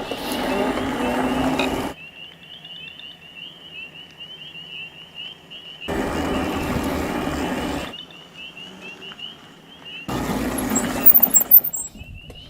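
A chorus of frogs by a flooded creek and beaver pond, many high peeping calls repeating without pause. Three times, for about two seconds each, rough noise swells over it and then stops abruptly.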